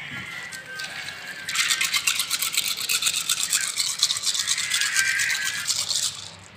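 Fast, rhythmic scrubbing, a stiff brush worked quickly back and forth, about ten scratchy strokes a second. It starts about one and a half seconds in and stops shortly before the end.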